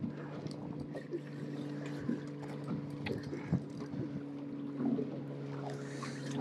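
A boat engine idling steadily as a low, even hum, with scattered light clicks and knocks over it.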